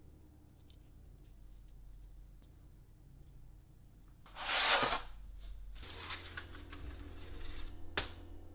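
Light handling sounds of cereal pieces being pressed onto cookie dough on parchment paper, then a brief loud paper-like rustle about halfway. After that comes a steady low hum with a rustling scrape, and a single sharp clink near the end as a metal baking sheet goes onto an oven rack.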